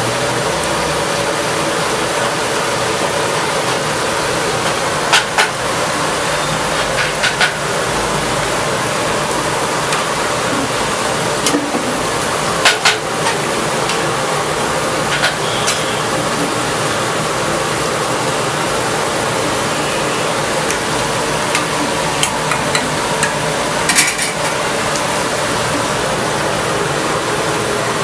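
Chicken legs deep-frying in a kadai of bubbling oil, a steady sizzle, with a metal spatula stirring and knocking sharply against the pan every few seconds.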